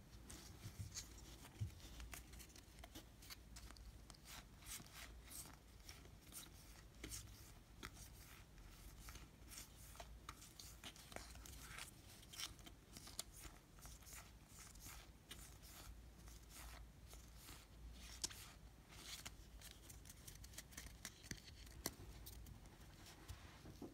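Faint, scattered clicks and rustles of Topps baseball cards being flipped and shuffled through by hand, with the foil pack wrapper handled among them.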